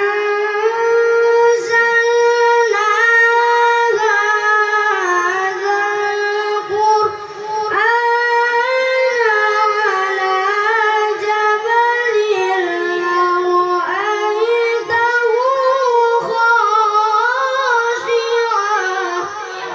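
A high voice reciting the Quran in melodic tilawah style, with long held notes and ornamented turns. It pauses briefly for breath twice.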